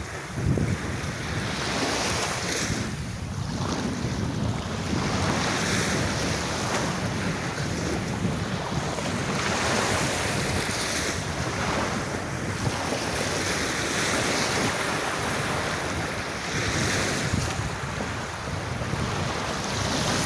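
Ocean waves breaking and washing up on a beach, the surf swelling and easing every few seconds, with wind noise on the microphone.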